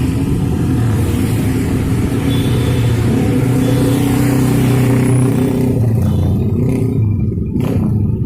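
Motor vehicle engines running and accelerating, a steady low hum of traffic.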